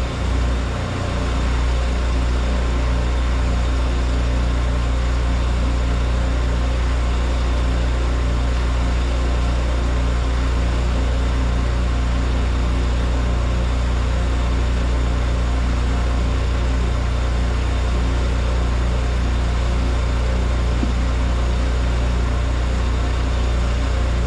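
Engine of a 12 gallon-a-minute pressure-washing rig running steadily, with an even hiss over it.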